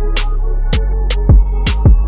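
Electronic background music with a steady beat: deep bass-drum hits that drop in pitch and sharp snare hits.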